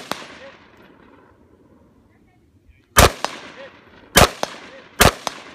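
Gunshots: the tail of one shot fades at the very start, then three more shots come about three seconds in, a second or less apart. Each shot is followed about a quarter second later by a fainter sharp crack.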